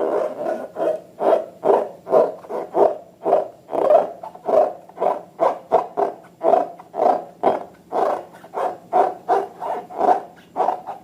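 Slime being squeezed and worked by hand: quick wet squelches and pops, about three a second in a steady rhythm.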